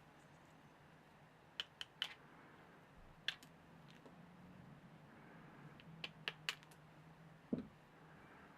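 Scattered light clicks and taps, about eight in all, in small groups, over a faint steady low hum.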